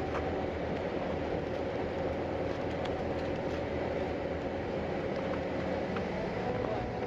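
Steady engine and road noise of a moving bus heard from inside the cabin, with a faint steady hum and a few light ticks.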